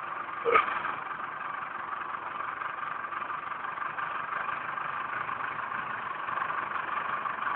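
Digger engine running steadily, with one short sharp sound about half a second in.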